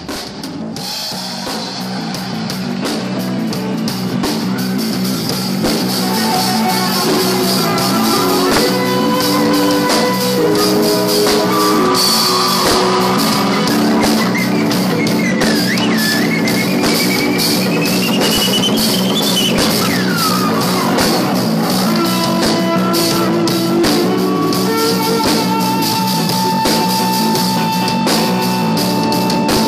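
Live jazz-rock band music with drum kit and guitar, swelling up over the first few seconds and then playing steadily. Around the middle, a lead line glides up in pitch and falls back.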